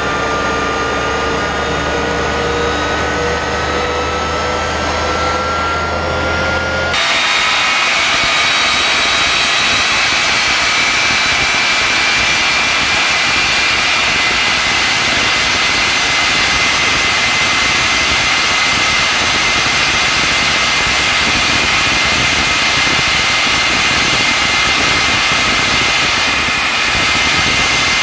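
Westinghouse J34 turbojet running steadily at part throttle on a pontoon boat, with a high whine over the jet noise. In the first seconds the whine rises slightly in pitch; about seven seconds in the sound changes abruptly to a louder, hissier jet noise with a steady high whine.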